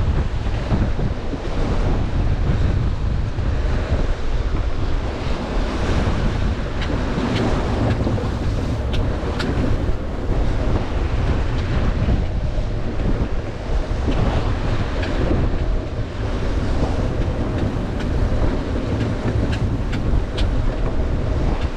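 Strong wind buffeting the microphone aboard a sailing yacht, over the rush of waves and water along the hull, with a few short sharp ticks.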